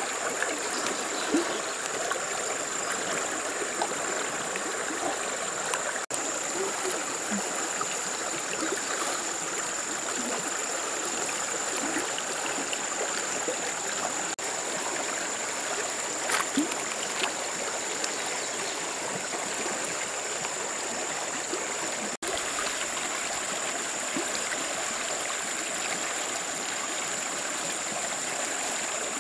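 Shallow stream running fast over a pebble bed: a steady rush of water, with a constant thin high-pitched whine above it and a few faint clicks.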